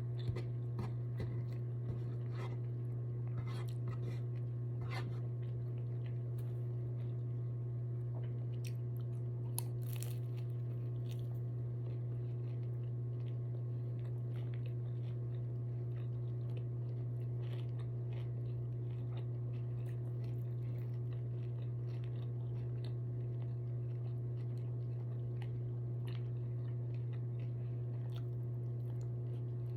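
A person eating crunchy fried food, with chewing and scattered crunches that come thickest in the first ten seconds. A steady low electrical hum runs underneath and is the loudest thing throughout.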